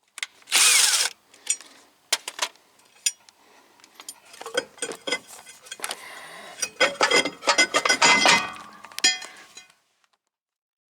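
Hand tools and loose metal brake and hub parts clanking, knocking and clicking during wheel-bearing work, with a short loud burst about half a second in.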